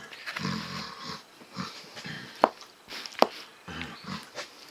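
Cutlery clinking sharply against a plate a few times, with low mouth sounds of someone eating and mumbling in between.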